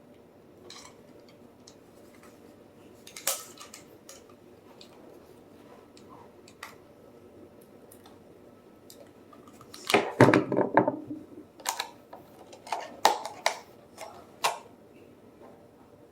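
Hands working at the hard plastic blister packaging of new padlocks: scattered clicks and crackles, a dense burst of crackling about ten seconds in, then several sharp snaps of plastic.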